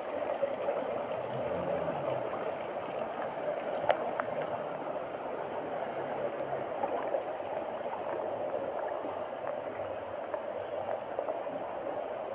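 Steady rushing of flowing water, with a few faint sharp clicks, the loudest about four seconds in.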